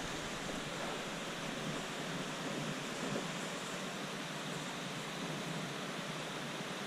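Steady rush of flowing river water: an even hiss with no distinct events.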